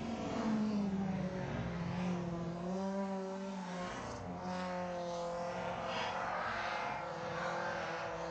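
Rally car's engine revving hard as the car approaches along the stage road, its note shifting up and down in pitch.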